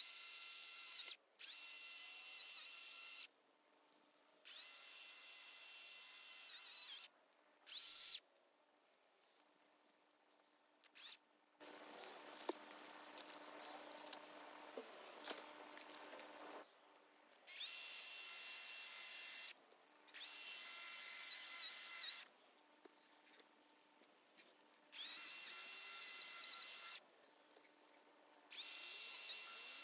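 Battery-powered chainsaw's electric motor and chain whining at a steady high pitch in repeated short trigger pulls of one to three seconds each, cutting off cleanly between them. About halfway through comes a rougher, noisier stretch of about four seconds.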